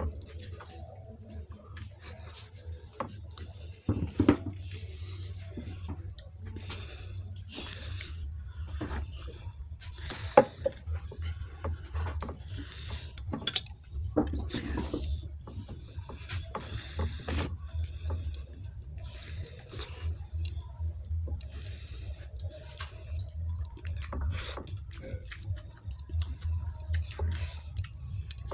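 Close-up wet eating sounds: a person chewing and smacking on soft, runny khichuri with aloo bhaji, in many irregular short clicks and squelches. A steady low hum runs underneath.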